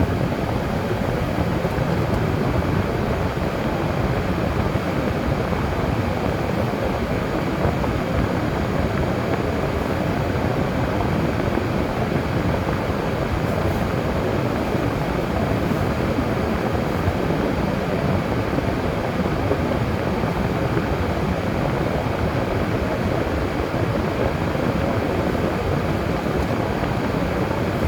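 Steady driving noise of a car on a snowy road: an even rush of tyre and engine noise with no distinct events.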